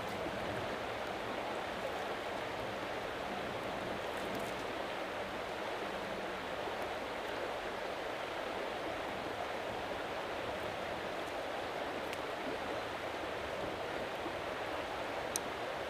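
Rushing creek: a steady, even rush of fast-flowing water. Over it a few faint, short scrapes of a knife struck down a ferro rod, with a sharper strike near the end.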